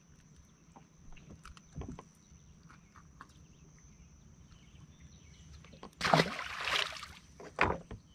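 A largemouth bass tossed back into the lake: a loud splash lasting about a second, about six seconds in, then a shorter second splash. Before it, a few faint clicks of handling.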